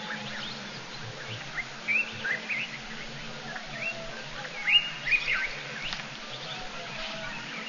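Short, high, rising animal chirps, scattered unevenly, a few louder ones about two seconds in and just before five seconds.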